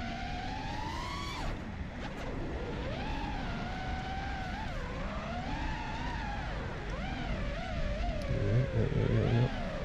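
FPV quadcopter's brushless motors whining, the pitch climbing and dropping again and again as the throttle is worked in flight.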